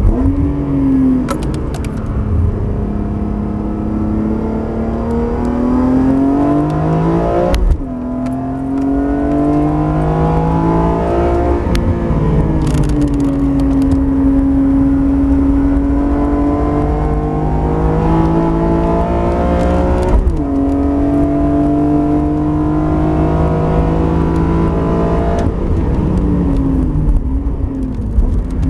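BMW E46 M3 CSL's 3.2-litre straight-six at speed, heard from inside the cabin. The engine note climbs and falls as the driver works the throttle, with several sharp breaks in pitch at gear changes.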